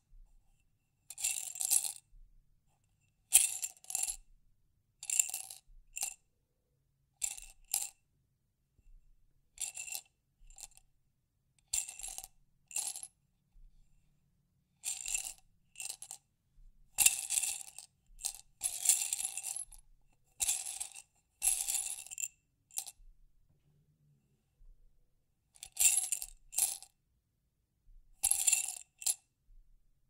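Small hard objects rattling and clinking inside a glass jar, in short bursts every second or two with a few longer pauses. The jar's own ringing note sounds through each burst.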